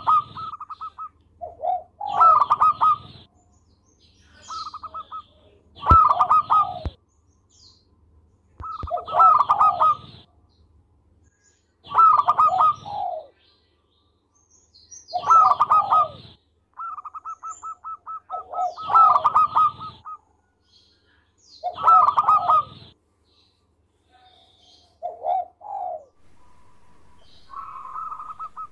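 Zebra dove (perkutut) singing its cooing song: about eight loud phrases of fast, stuttering notes, one every three to four seconds, with runs of quick repeated notes between some of them.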